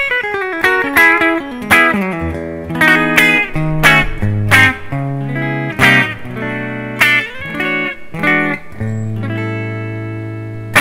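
Tokai AST-52 Goldstar Sound electric guitar played clean through its bridge humbucker: picked single notes and broken chords, then a final chord left to ring for the last couple of seconds.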